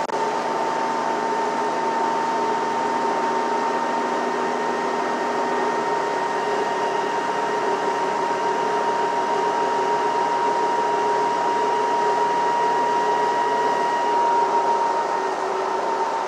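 Inside a moving city transit bus: a steady drone of engine and road noise with a constant high whine over it, swelling slightly near the end.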